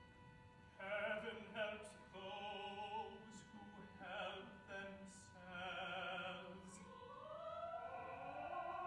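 Operatic tenor singing short phrases with wide vibrato, the words 'heaven helps those who help themselves', then a rising, held line near the end.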